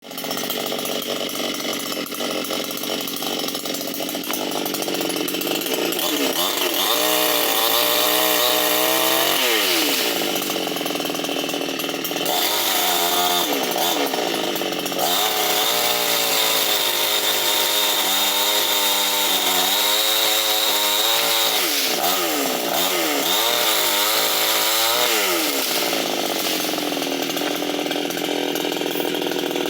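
Vulcan VSL550 two-stroke chainsaw running at high revs and cutting mango tree branches. In four long spells the engine note sags and wavers under the load of the cut, then climbs back to full speed between cuts.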